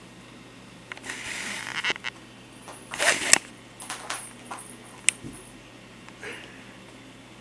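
A kitten scampering and scuffling about on a carpeted floor: a rustling scrabble about a second in, a louder scuffle about three seconds in, then scattered light taps and clicks, with a faint metallic jingle among them.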